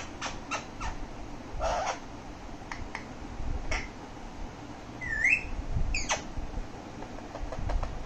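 Alexandrine parakeet making a series of short clicks and squawks, with a brief rising whistled note about five seconds in.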